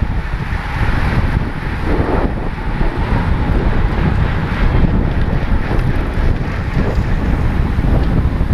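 Heavy wind buffeting on a helmet-mounted GoPro in an open skeleton housing, riding a road bike at racing speed; a steady, loud rumble.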